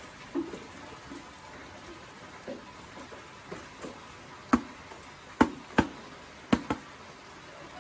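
A bucket of wet tofu-dregs feed is emptied onto a maggot bed. The feed slides out with a few soft thuds, then the bucket is knocked about five times in quick succession in the second half to shake out the last of it.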